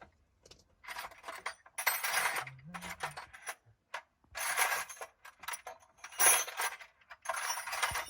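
Metal hand tools clinking and clattering in several bursts as a socket set is rummaged through for a socket extension bar and adapter.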